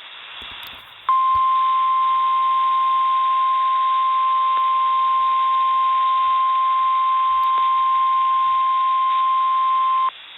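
Emergency alert tone on a weather radio broadcast, most likely the NOAA Weather Radio 1050 Hz warning alarm tone: one steady, unwavering high beep held for about nine seconds over radio hiss, cutting off abruptly. It signals that a weather warning message is about to follow.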